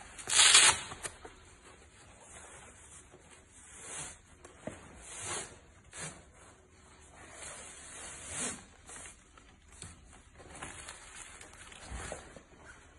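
Hook-and-loop fastener on a bulletproof vest's back plate pocket ripping open about half a second in, the loudest sound. Fabric rustling follows, with a few soft knocks and scrapes as the ballistic plate is handled in and out of the pocket.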